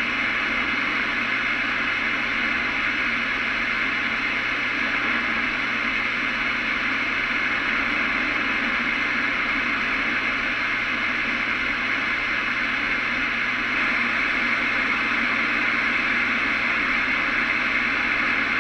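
Steady hiss of static from a CB radio receiver with no station coming through, the band noise heard between transmissions.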